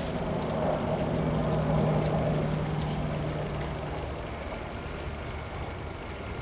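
A steady engine hum at one pitch that swells to its loudest about two seconds in, then fades away.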